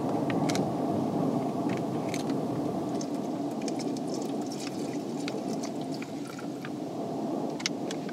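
A steady low rumble with water being poured into a metal mess-kit cup for a flameless chemical heater, along with light clicks and taps of the metal cookware being handled.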